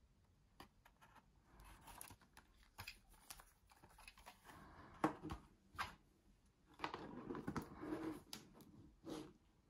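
Clear plastic model-wagon cases being handled and slid into place side by side: scattered light clicks and knocks with short bursts of plastic rubbing and scraping, a sharper knock about halfway through and a longer stretch of rubbing after it.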